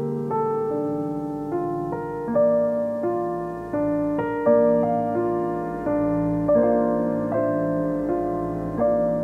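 Background piano music: a steady run of sustained notes, a new one about twice a second.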